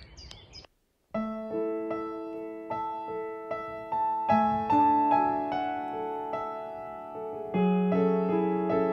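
Piano playing the introduction of a song, sustained chords under a simple melody, starting about a second in after a short gap. It grows a little louder with a deeper chord near the end.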